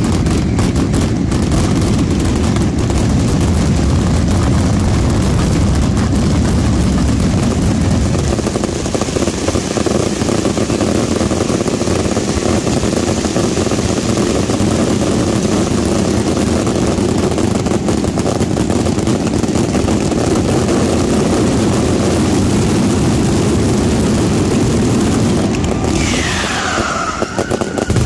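Night mascletà pyrotechnics: a dense, unbroken barrage of ground-level firecrackers and aerial shells exploding, with the deepest booming in the first eight seconds or so. A falling whistle is heard near the end as the barrage reaches its finale.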